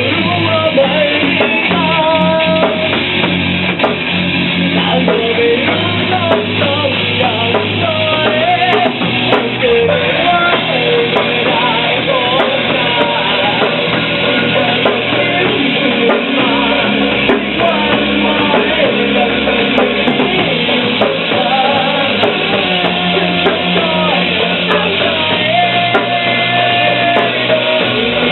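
Loud rock music with a drum kit, a bass line and a singing voice or lead guitar line over it.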